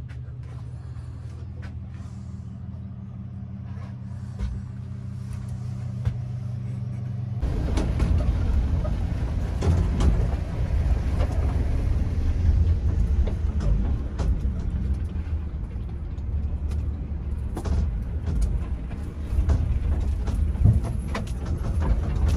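A heavy vehicle's engine is heard from inside a boat's cabin as the boat, on its trailer, is hauled across the beach toward the water. At first the engine hums steadily. About seven seconds in it becomes a much louder rumble, with knocks and rattles from the trailer and hull.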